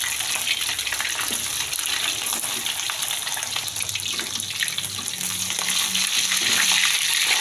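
Pieces of stingray frying in hot oil in a wok: a steady sizzle.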